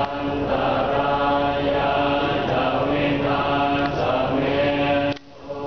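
A group of Thai Buddhist monks chanting in unison, their voices holding long, level notes that shift pitch only slightly, with a short break near the end.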